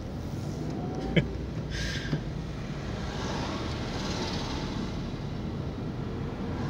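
Inside a Toyota car driving slowly in town traffic: a steady low rumble of engine and road noise, with a sharp click about a second in and a short hiss just after.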